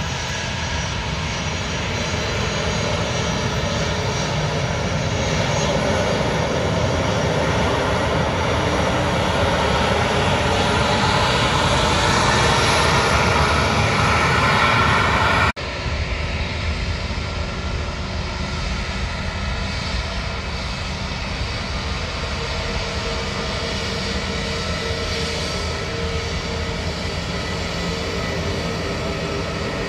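Airliner engines passing close, growing louder for about fifteen seconds with tones falling in pitch. The sound cuts off abruptly about halfway through and is replaced by a steadier, slightly quieter aircraft engine noise.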